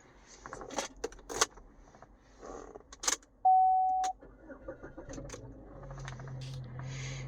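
Car keys jangling with several sharp clicks, then a single steady electronic chime tone from the 2013 Chevy Malibu about three and a half seconds in, followed by a low steady hum building in the last two seconds as the car is readied to start.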